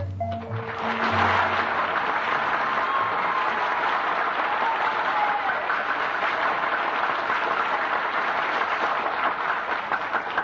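A radio studio audience applauding steadily for nearly ten seconds after a musical number. The last notes of the music end just before the clapping starts.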